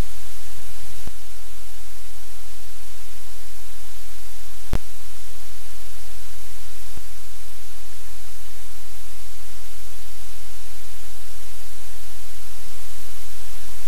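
Loud, steady hiss of static with a low hum beneath it, and one sharp click about five seconds in.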